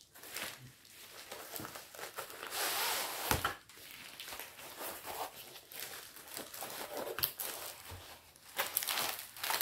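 Packaging of a diamond painting kit crinkling and rustling as it is handled, with scattered small clicks and a louder stretch about three seconds in.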